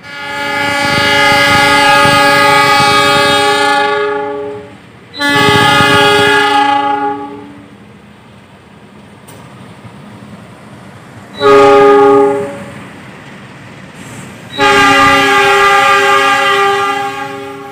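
Diesel locomotive's horn sounding four blasts as a passenger train rolls slowly into the station: a long one, a shorter one, a brief one about eleven seconds in, and another long one near the end. The low rumble of the moving train is heard between the blasts.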